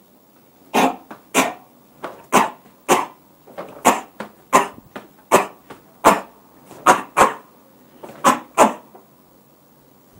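A man's short, forceful breath expulsions in karate Ibuki breathing (the 'Haku' phase): about eighteen sharp exhalations, roughly two a second and often in pairs. He lets one breath out in stages with no inhalation in between.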